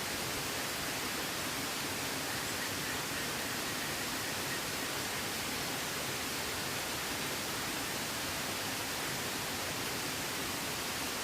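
Steady, even rushing of water with no breaks. Faint high chirps come through a couple of seconds in.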